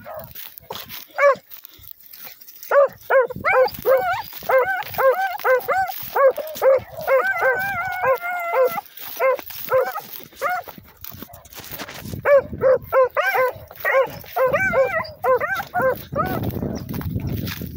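Two rabbit hounds baying on a rabbit's trail: runs of quick, short, ringing chops, two or three a second, with the two dogs' voices overlapping in places. The baying pauses briefly past the middle, then picks up again.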